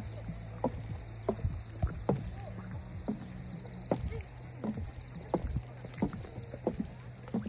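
Footsteps in sneakers going down wooden stair treads, a knock about every two-thirds of a second, over a steady low hum.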